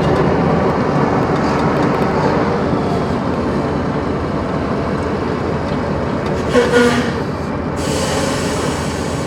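A vehicle carrying a load of scrap metal drives slowly, giving a steady rumble of engine and road noise heard from inside the cab. A short, louder sound with a steady pitch breaks in about seven seconds in.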